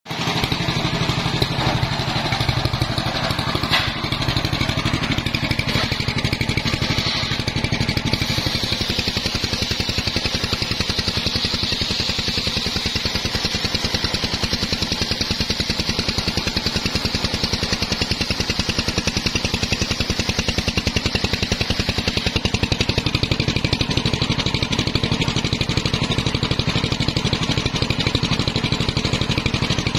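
Engine-driven homemade circular saw bench running steadily, its large blade ripping a mahogany log lengthwise into beams.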